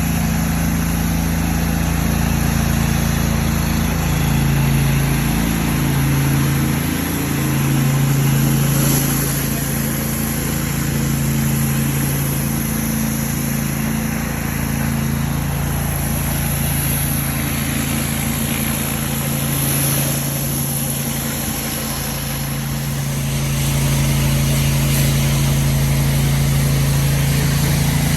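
Gas engine of a pressure washer running steadily, its pitch shifting a little now and then.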